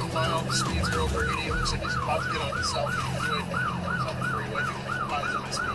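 Police cruiser's siren in yelp mode, a fast rising-and-falling wail repeating about four times a second, over the cruiser's engine and road noise during a high-speed pursuit, heard from inside the car.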